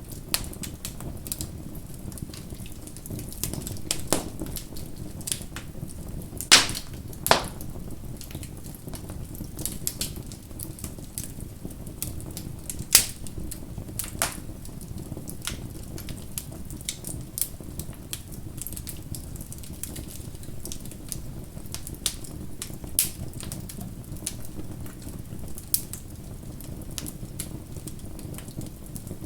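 Bonfire crackling: a steady low rumble of burning wood under irregular sharp snaps and pops. A few louder pops come about six and a half, seven and thirteen seconds in.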